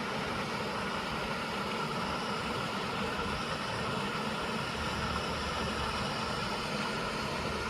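Steady rush of water from a creek waterfall, an even hiss with no breaks.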